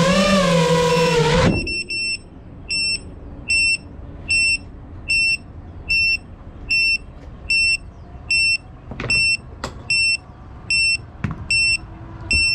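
FPV quadcopter's lost-model beeper sounding a short high beep about every 0.8 seconds, the signal that the drone is down and disarmed. Before the beeping starts, a loud wavering hum cuts off abruptly about a second and a half in, and a few faint knocks come near the end.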